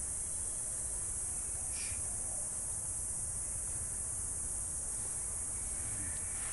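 Steady, high-pitched outdoor background hiss with a low rumble under it, and one brief faint sound about two seconds in.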